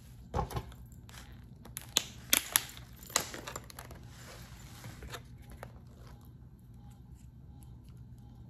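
Clear plastic takeout salad container being opened: the thin lid crackles and gives several sharp snaps about two to three seconds in as it is pried off, then quieter plastic handling.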